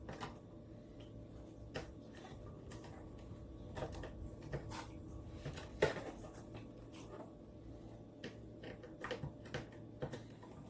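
Scattered light clicks and knocks from handling monitor-arm hardware and tools, with the loudest knock about six seconds in.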